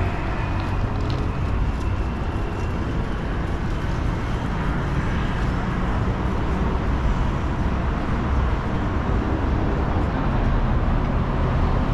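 Steady city street traffic noise, with cars passing in a continuous low rumble.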